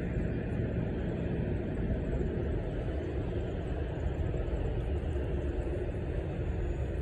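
Steady low rumble, which the listeners take for a Metro subway train running underground.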